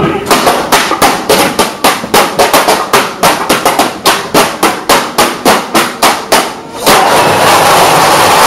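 Metal trash-can lids clashed together in a fast, syncopated rhythm, sharp crashes about four times a second. About seven seconds in the strikes give way to a loud, continuous wash of sound.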